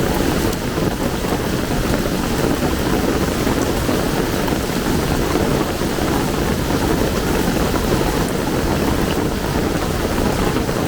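Heavy rain pouring steadily, a dense, even hiss with no letup.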